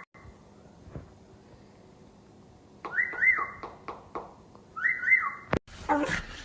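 A pet's short, high whistled calls, each rising and falling, in two pairs about two seconds apart. A few other short sounds follow near the end.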